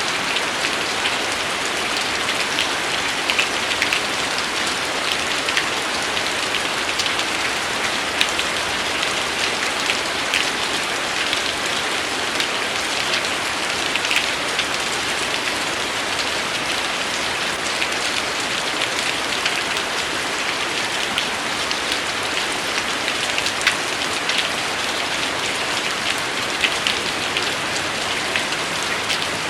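Steady rain falling, an even hiss with many individual drops ticking on a surface.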